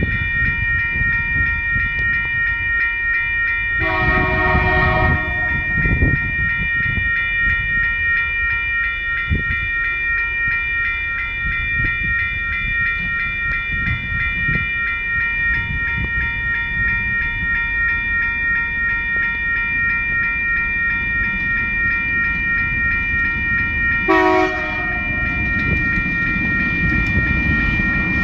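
Level crossing warning bell coming on and ringing steadily as a TasRail freight train approaches. The leading TR-class diesel locomotive sounds its horn twice, once about four seconds in for over a second and again briefly a few seconds before the end, and its engine rumble grows louder near the end.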